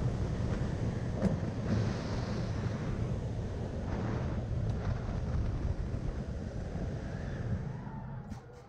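Wooden roller coaster train running along the track at speed, with heavy wind buffeting the microphone. The noise drops off near the end as the train slows on the brake run.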